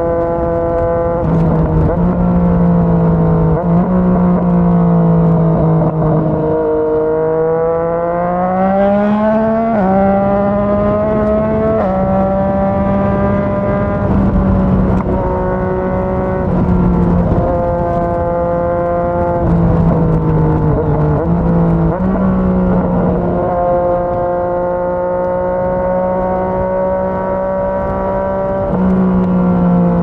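Yamaha MT-09 inline-three engine running through a Yoshimura R55 slip-on exhaust at steady road speed, its pitch stepping up and down slightly with the throttle. About a third of the way in the revs climb smoothly for a few seconds before settling again.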